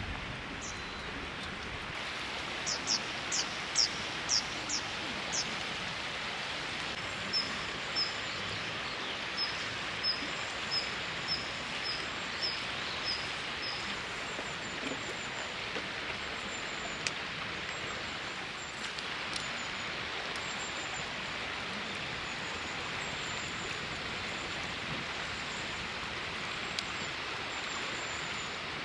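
Steady rush of river water, with small birds calling over it: about six quick downward-sweeping calls a few seconds in, then a run of short high chirps about two a second, and fainter high chirps later.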